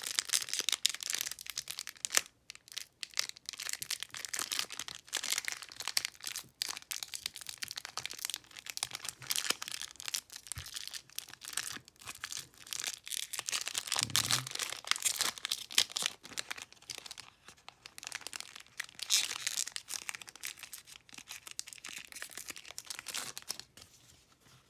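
Foil wrapper of a Pokémon booster pack being torn open and crinkled by hand, a dense run of crackling rustles and sharp little crinkles.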